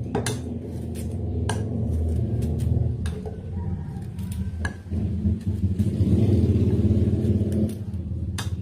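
Pieces of chopped bilimbi (belimbing wuluh) dropped into a blender jar, giving a few sharp clinks spread through, over a low rumble that grows louder from about the middle and eases off near the end.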